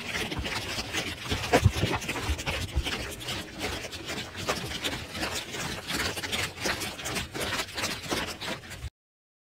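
Plastic rattle being shaken: a continuous, dense run of quick clicks and rustles that stops abruptly near the end.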